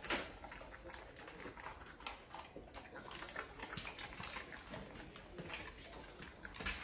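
Faint, irregular clicks and rustling of things being handled on pantry shelves.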